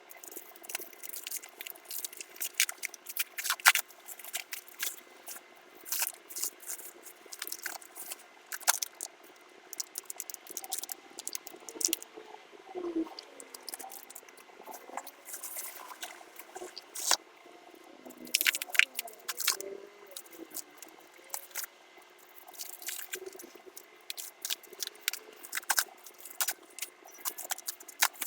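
Packaging being handled during an unboxing, heard as irregular crinkling, crackling and light clicks with no steady rhythm.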